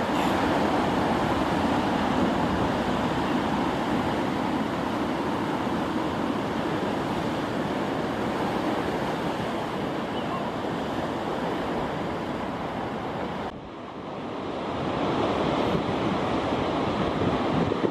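Ocean surf washing steadily on the beach, with wind on the microphone. The sound dips briefly about three-quarters of the way through, then comes back.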